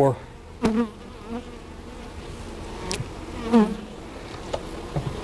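Honey bees buzzing around an open hive, a steady hum with a couple of louder buzzes close by. There is a sharp click about three seconds in.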